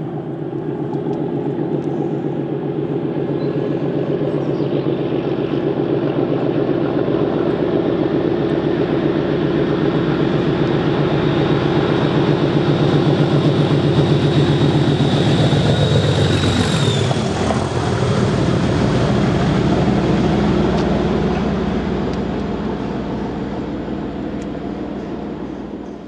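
Train approaching and running through at speed. A low, steady engine drone with a higher whine builds up, then drops sharply in pitch as the train passes about 17 seconds in, and fades away after.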